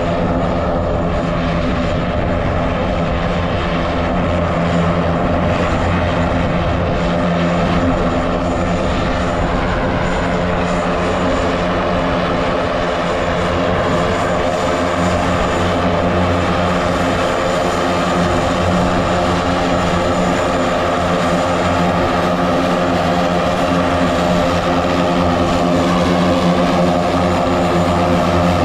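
Float plane's propeller engine running steadily on the water, a continuous even drone that grows slightly louder near the end.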